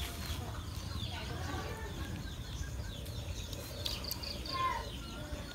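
Small birds chirping on and off in the background, short high calls scattered throughout, over a low steady rumble.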